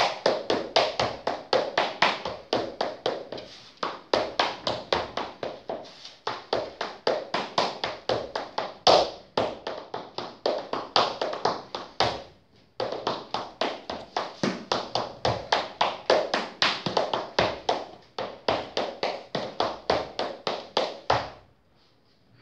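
Irish dance hornpipe steps danced slowly: shoes tapping and stamping on a laminate floor in a quick, even rhythm of about four to five strikes a second. The steps stop briefly about twelve seconds in and again near the end.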